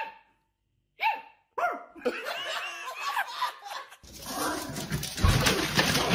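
A husky puppy gives short, high, pitched howls mixed with a man's laughter. About four seconds in, a noisier stretch starts, with a thump a second later.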